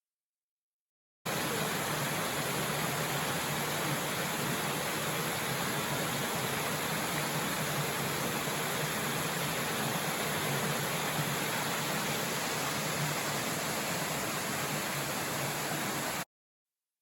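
Steady rushing of the Minoh Falls waterfall, an even roar with no changes in it, cutting in about a second in and cutting off abruptly shortly before the end.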